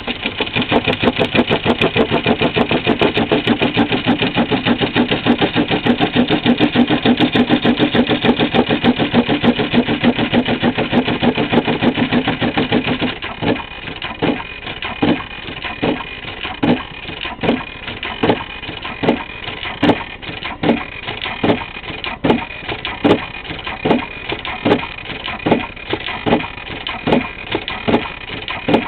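Brother BAS-311/326G industrial pattern sewing machine stitching through 12 mm rope: a rapid run of needle strokes for about the first half, then it drops to slow, evenly spaced single strokes a little over one per second.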